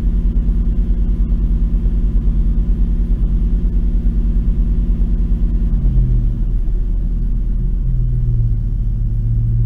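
A 2004 Jeep's engine running, held at about 2,000 rpm, then the throttle released about six seconds in, with the revs dropping back toward idle.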